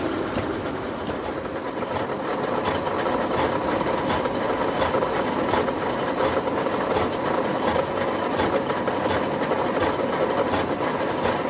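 1M63 heavy engine lathe running, with its steady hum and a faint regular ticking, while it faces a crooked blank.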